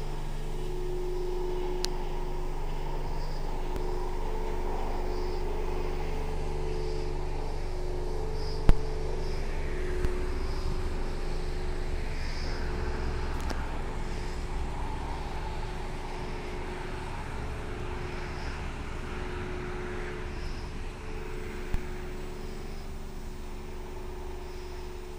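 Small engine of a BaMaRo MB08 mini excavator idling steadily, easing slightly toward the end, with one sharp knock about nine seconds in and a couple of lighter clicks.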